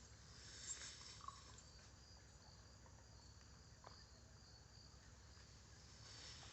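Near silence with faint, steady high-pitched insect chirping and a couple of faint ticks about a second in.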